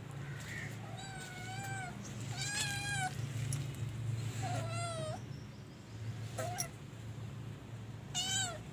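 Tabby kittens meowing: about five high, separate calls spread over several seconds, over a steady low hum.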